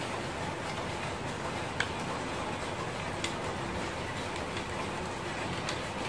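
A few faint, sharp clicks from small tools and plug parts being handled while the wires are screwed into their terminals, over a steady hiss.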